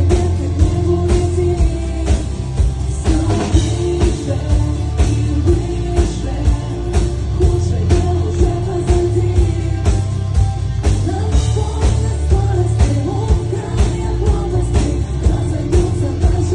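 Rock band music with a steady drum beat of about two hits a second, over bass and guitar.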